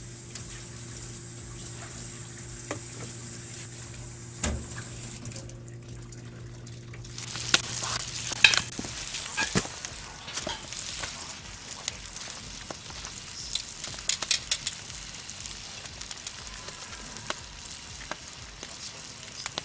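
Tap water running into a stainless-steel sink for the first five seconds or so. Then ground meat sizzling in a cast-iron skillet on a grill over a campfire, with bell pepper pieces on the grate beside it and scattered sharp pops and crackles.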